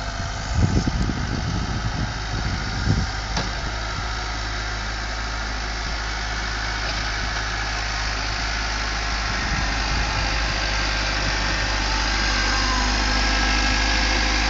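Kubota tractor's diesel engine running steadily, growing gradually louder toward the end, with a few low thumps in the first few seconds.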